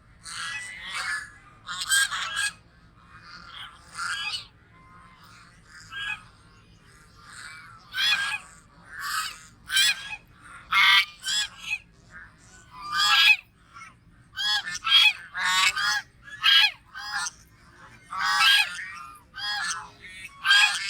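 Goose honking over and over, a run of harsh, pitched calls that come sparsely at first and then thick and fast from about eight seconds in.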